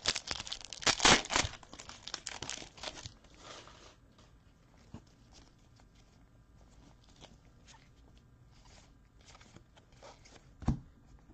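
Foil wrapper of a trading card pack torn open and crinkled for about four seconds, then faint rustles and clicks of the cards being handled, with a single knock near the end.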